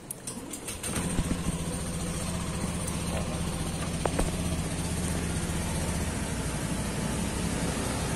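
Yamaha Byson 150's single-cylinder four-stroke engine, fitted with an SC Project aftermarket exhaust, starts about a second in and then idles steadily.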